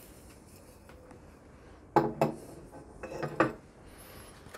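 Rods of a flexible overhead camera arm being set down on a desk and knocking against it and each other: a pair of hard clacks about two seconds in and another pair about a second later.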